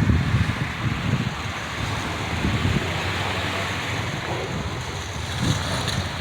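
Blizzard wind buffeting the microphone: a steady rushing hiss with uneven low rumbling gusts.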